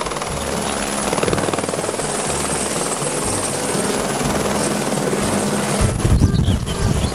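Airbus AS350 Écureuil helicopter flying low, its turbine and main rotor making a steady, rapid blade chop; the sound swells with a deeper rumble about six seconds in.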